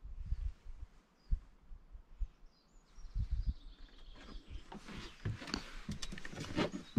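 Footsteps and rustling outdoors, with scattered low thumps and clicks that grow busier over the last few seconds. A few faint bird chirps sound in the first couple of seconds.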